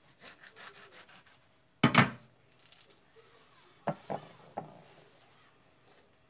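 A serrated bread knife sawing through a lemon in a few quick scratchy strokes. About two seconds in, a loud clatter as the knife is set down on the serving tray, followed by three lighter knocks.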